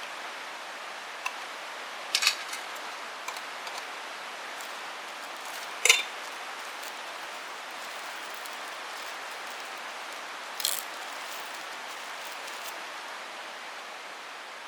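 Flint struck against a steel striker to throw sparks onto char cloth: a handful of sharp, scraping strikes at irregular intervals, the loudest about six seconds in, over a steady outdoor hiss.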